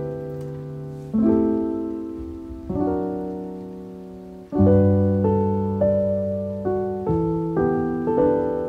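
Background piano music: slow chords, each struck and left to fade, coming more quickly in the second half.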